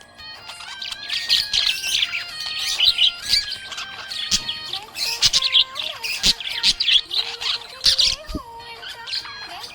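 Budgerigars chirping and warbling in quick, busy bursts, with a melody playing underneath.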